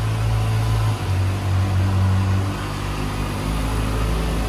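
Brand-new Kawasaki ZX-6R's inline-four engine idling steadily on its stock exhaust, on its very first run. Its pitch shifts slightly about a second in.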